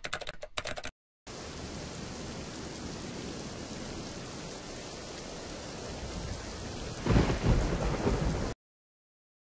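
Rain sound effect: a steady hiss of heavy rain, with a thunderclap about seven seconds in as the loudest moment, cutting off abruptly near the end. It opens with a quick run of typing-like clicks.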